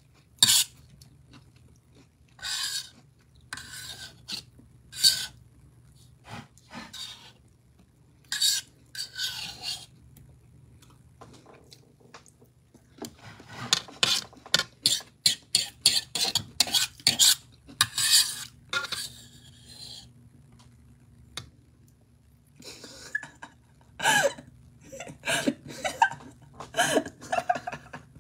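Metal fork scraping and clinking against a bowl as scrambled egg is scooped up: a run of short, sharp scrapes and taps, sparse at first and coming thick and fast in the middle and again near the end.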